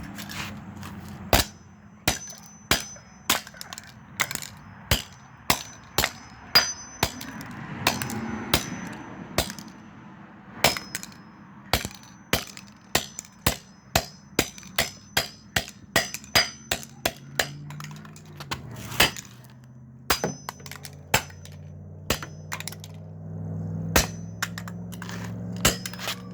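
A hammer striking a toy car again and again, roughly one and a half blows a second, each a sharp clack, some with a short metallic ring.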